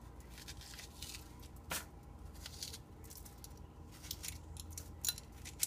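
Metal spoon scraping the seeds out of a halved zucchini: a run of short, soft scrapes and clicks, with a sharper click about two seconds in and two more near the end.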